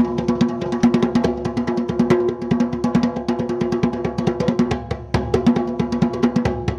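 Music of rapid, dense drumming, many strokes a second, with steady held tones underneath.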